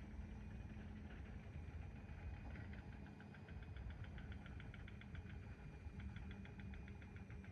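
Faint steady hum of an idling engine, with a light rapid ticking for a few seconds in the middle.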